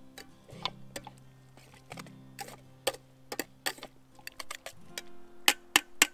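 Sharp, irregular clicks and taps over soft background music, coming closer together and louder near the end.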